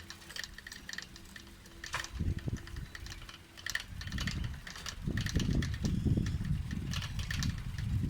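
Bicycle ridden along a lane, with irregular ticking and rattling from the bike. From about five seconds in, wind starts buffeting the microphone in a loud low rumble as the bike picks up speed.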